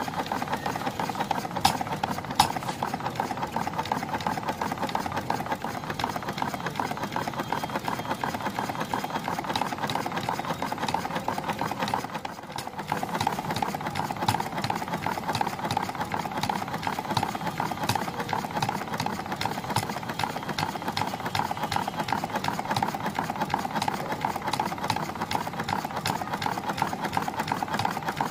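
Homemade single-cylinder spark-ignition petrol engine, its piston in a car brake wheel cylinder driving a flywheel through a sewing-machine connecting rod, running fast with a steady rapid mechanical rattle. A couple of sharp clicks come about two seconds in, and the sound dips briefly around twelve seconds in.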